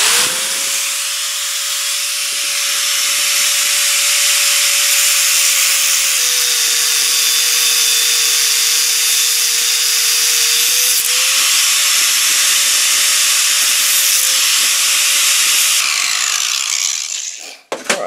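Power cutting tool with a spinning cutoff wheel cutting through a caster's threaded bolt stem to shorten it. A steady high whine under a loud grinding hiss, the pitch sagging as the wheel bites from about six to eleven seconds in and briefly again near fourteen, then winding down about sixteen seconds in.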